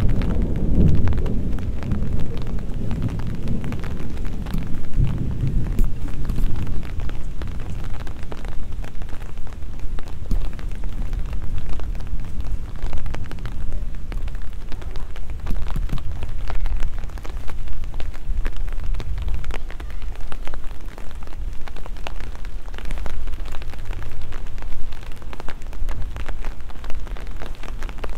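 Steady rain, with many individual drops ticking close by. A low rumble of thunder dies away over the first few seconds.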